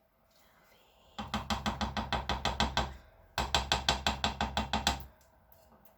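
Rapid mechanical ratcheting clicks in two runs of nearly two seconds each, about six clicks a second, with a short pause between them.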